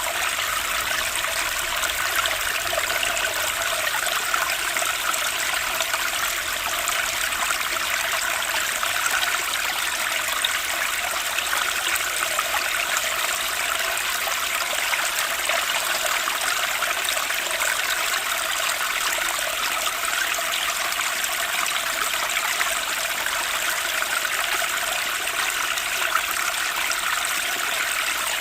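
Stream water flowing and trickling steadily, an even rushing splash with no breaks.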